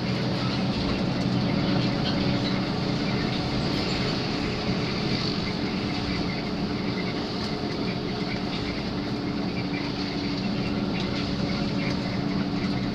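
Steady engine hum and road noise inside a moving coach bus cabin, holding an even level at cruising speed.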